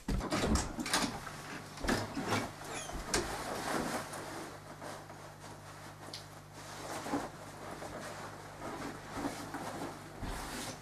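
Footsteps on a floor and the rustle of a jacket being pulled off and hung on a wall coat hook, with scattered light knocks, over a steady low hum.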